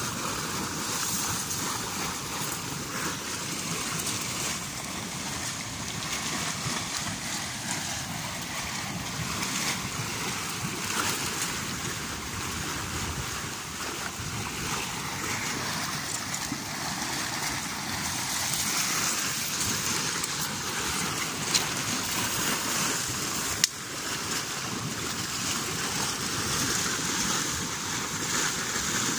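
Spring water welling up and churning in a small pool, a steady rushing splash. Two brief sharp clicks come about three-quarters of the way through.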